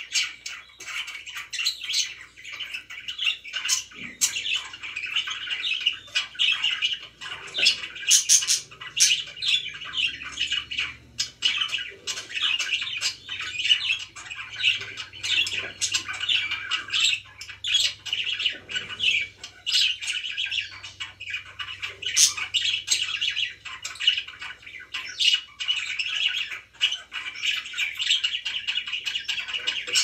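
Several pet budgerigars chirping and chattering without a break: a busy stream of short, high calls overlapping one another.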